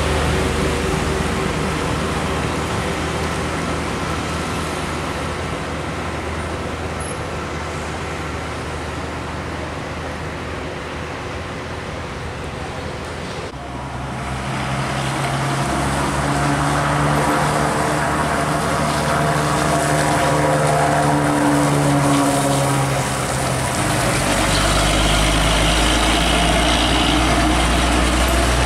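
A motor vehicle's engine running steadily. It changes abruptly about halfway through, after which its pitch slowly rises and falls.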